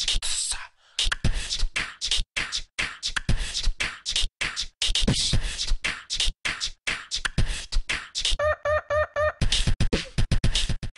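A voice chopped into a rhythmic, beatbox-like pattern: short sharp vocal hits with abrupt gaps between them. Late on comes about a second of quick repeated pitched stutters.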